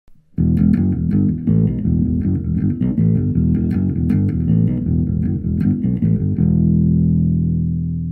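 Instrumental intro music with bass and plucked guitar in a steady rhythm; about six seconds in it lands on a held chord that fades out.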